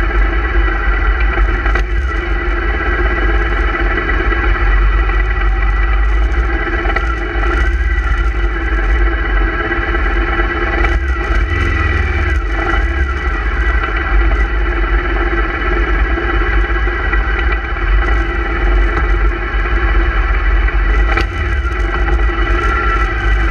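Motorcycle engines running at steady low revs as a group of bikes rides slowly, the closest engine dominating with a heavy low rumble.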